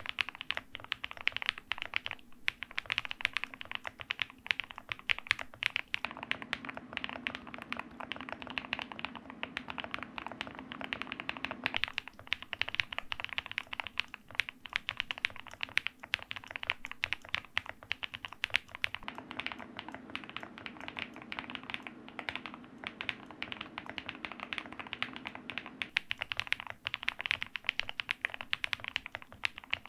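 Akko MU01 gasket-mounted wooden-case mechanical keyboard with Holy Panda tactile switches, an FR4 plate and Osume Red Panda keycaps, typed on quickly and continuously. The keystrokes come as a dense, steady stream of clacks.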